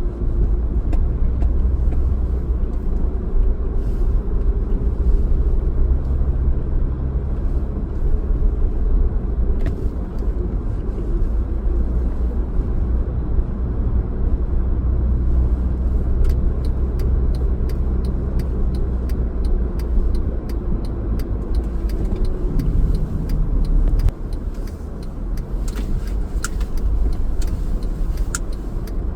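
Car driving, with a steady low rumble of engine and road noise that eases about 24 seconds in. Scattered faint clicks come through in the second half.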